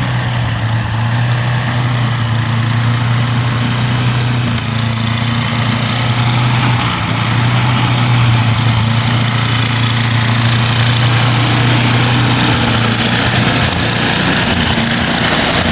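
Engine running steadily at an even speed: a low, constant hum that does not change in pitch.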